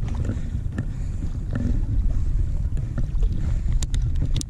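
Wind rumbling on the microphone, with a few sharp clicks near the end.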